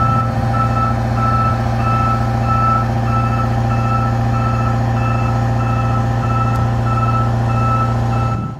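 Telescopic boom lift running, its engine droning steadily while its motion alarm beeps about twice a second.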